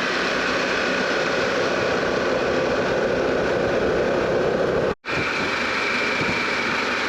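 Harley-Davidson Pan America's 1250 V-twin running at road speed, mixed with steady wind and road noise. The sound drops out for an instant about five seconds in.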